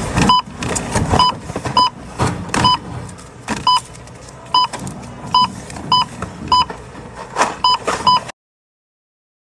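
Electronic keypad beeping as its buttons are pressed: about eleven short beeps, all at the same pitch, at uneven intervals, with sharp taps and knocks in between. The sound cuts off abruptly near the end.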